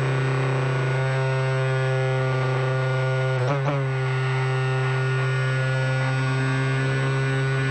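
Quadcopter drone motors whining with a steady, multi-toned hum. About three and a half seconds in the pitch dips briefly and comes back, as the throttle is cut and reapplied during a roll.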